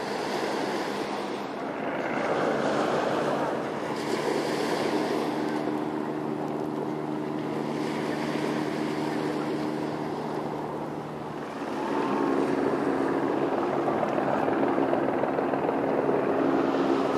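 Wind and open water with the steady hum of motorboat engines running on the water. The engine hum drops briefly and comes back louder about two-thirds of the way through.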